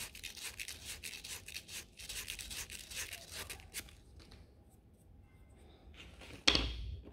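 Fine sandpaper wrapped around the end of a wooden dowel, rubbed round it in quick strokes for about four seconds to take a little off its diameter so it fits the drilled holes. Near the end comes a single sharp knock.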